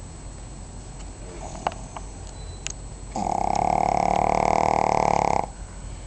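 Pug snoring: one loud, buzzy snore about three seconds in, lasting a little over two seconds, after a few faint clicks and snuffles.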